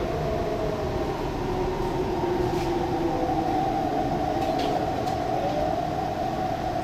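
MTR East Rail line R-Train electric multiple unit heard from inside the car while running along the line: a steady rumble with a traction-motor whine that drifts a little in pitch, and a few faint ticks.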